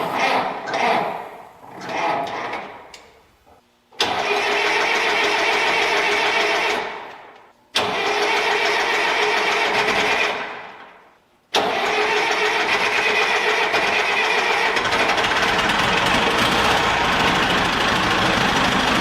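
Old heavy forklift's engine being started on a test start: it comes on suddenly and runs, fading away twice, then starts a third time about eleven seconds in and keeps running steadily.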